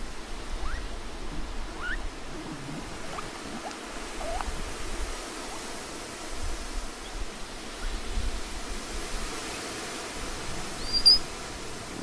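Steady outdoor hiss with a few faint, short rising squeaks from a Patagonian mara in the first few seconds, then one sharp high chirp about eleven seconds in.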